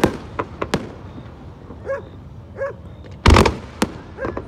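Aerial fireworks shells bursting: several sharp cracks in the first second, then a loud boom a little past three seconds in, followed by one more crack.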